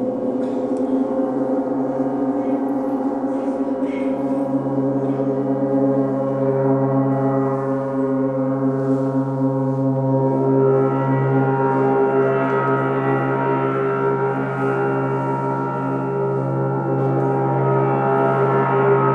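Gongs ringing in a sustained, shimmering wash of many overlapping tones with a steady deep hum beneath. From about ten seconds in the sound swells and grows brighter in its higher overtones.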